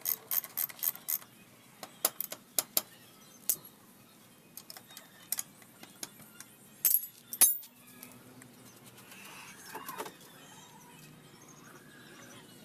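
Ratchet wrench clicking rapidly for about a second as a bolt is turned on a Honda XRM 125's swing arm, then scattered metal clinks of tools and parts, with two loud clanks about seven seconds in.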